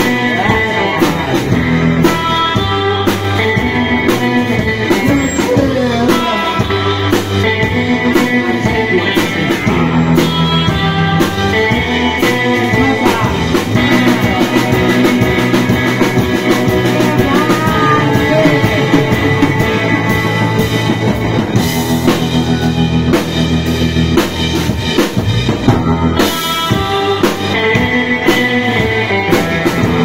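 Live rock band playing: electric guitars, one a hollow-body, over a steady drum-kit beat, heard loud through the stage amplifiers.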